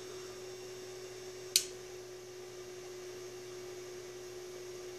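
Steady electrical hum, one even pitch over a fainter low buzz, from the bench setup while the 2x4 CB linear amplifier is keyed at full power. There is one sharp click about a second and a half in.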